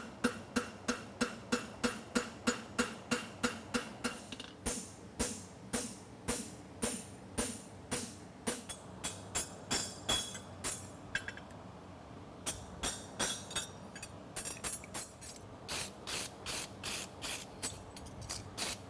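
Farrier's hammer striking a steel horseshoe on an anvil in a steady rhythm. For the first few seconds the blows come about three a second, each with a metallic ring. They then slow to about two a second and sound duller, stop briefly near the middle, and start again.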